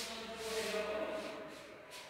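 A person's voice, indistinct, with no clear words.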